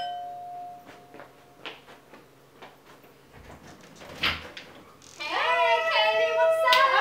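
A doorbell chime rings and dies away over the first second or so. A few light footsteps and a door being opened follow about four seconds in. From about five seconds, women's voices squeal a loud, drawn-out, excited greeting.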